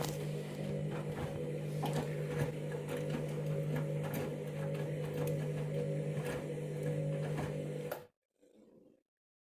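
Candy washing machine's drum motor running with a steady hum and scattered light clicks, cutting off suddenly about eight seconds in.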